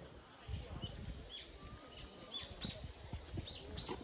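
A bird calling in short, arched chirps, a few at a time with gaps between, over irregular low muffled thumps and rumble.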